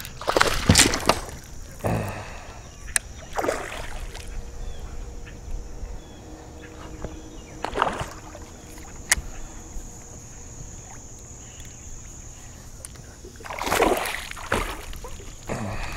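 Hooked largemouth bass splashing at the water's surface several times as it is fought to the boat, with the biggest splashes near the end as it comes close.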